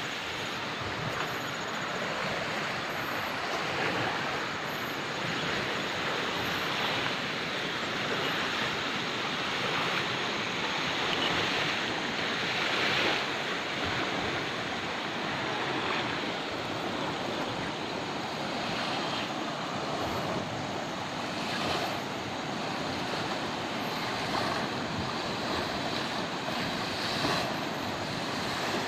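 Steady rush of a flowing river, an even hiss with no single events standing out.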